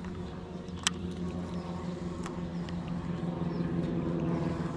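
Boat motor running with a steady low hum, with a sharp click about a second in and a few fainter ticks.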